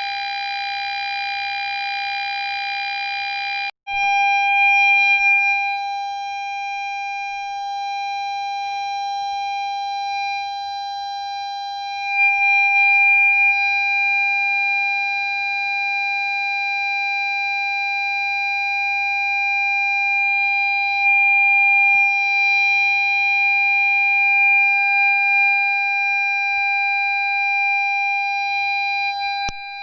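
Ford Fiesta parking sensor buzzer sounding one steady, unbroken tone rather than separate beeps: the solid warning that an obstacle is very close. A hiss underlies it until it cuts out for an instant about four seconds in, and then the tone carries on clean.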